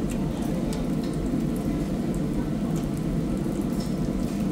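Meat sizzling on a tabletop Japanese BBQ grill, a steady crackling hiss over a low hum, with a few faint clicks.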